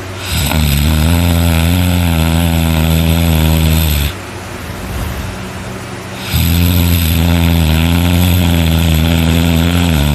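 A person snoring loudly: two long snores of about four seconds each, a low buzzing pitch with hiss over it, with a quieter stretch of breathing between them.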